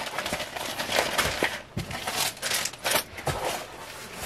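Handling noise: an irregular run of light clicks, knocks and rustles as small jewellery items and boxes are shifted about on a table.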